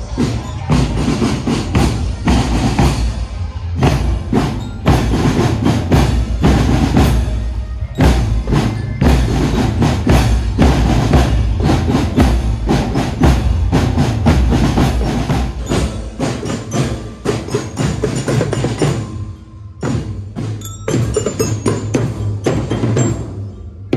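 Marching drum band playing: rapid drum strokes over a low bass, with the ringing of bell lyres above them. The playing drops off briefly about three-quarters of the way through, then picks up again.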